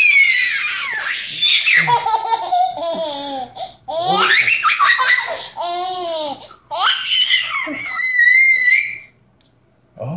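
Baby laughing hysterically while being tickled, in three long bouts of high-pitched belly laughter with short gaps for breath. The last bout ends in a high squeal, and it goes quiet near the end.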